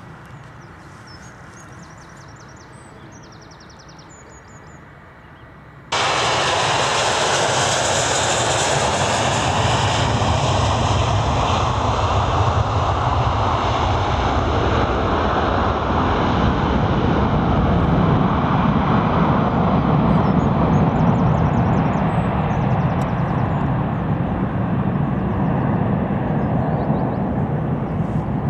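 Airbus A321 jet engines at takeoff thrust, a loud steady roar that starts abruptly about six seconds in and slowly loses its highest hiss as the airliner climbs away. Before it, a quieter distant rumble.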